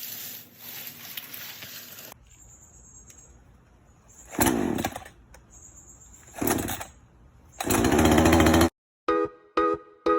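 Chainsaw revved three times in short bursts, the last and loudest lasting about a second. It cuts off suddenly, and music with separate notes begins near the end.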